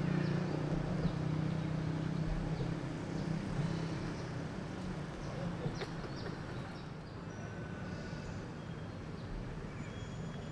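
Outdoor ambience: a low steady engine-like hum that fades over the first five seconds or so, with faint scattered clicks and a few thin high chirps.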